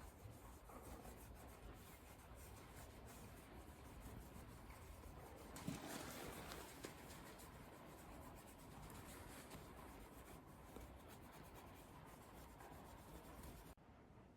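Faint rubbing of a cloth polishing the auxiliary lights, with a few soft knocks; slightly louder about six seconds in.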